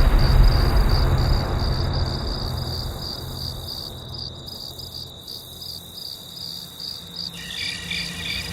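Cricket chirping sound effect: a steady, high, pulsing trill over the low rumble of a preceding boom, which fades away over the first few seconds. A few more high tones join near the end.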